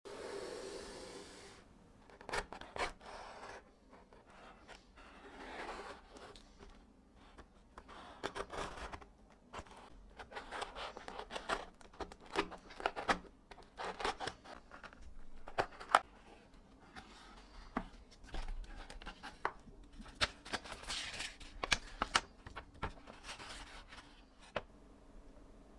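Cardboard box being opened by hand: a utility knife slitting the packing tape, cardboard flaps and paper rubbing and rustling, with many sharp clicks and taps from handling.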